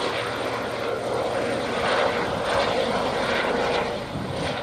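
Eurocopter helicopter of the Gendarmerie flying past, a steady mix of rotor and turbine noise with a faint whine, easing off slightly near the end.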